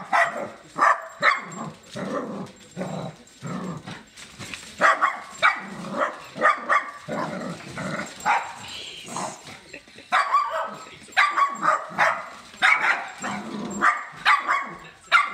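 Small dog barking over and over in quick runs with short pauses, agitated at a walking Sony Aibo robot dog.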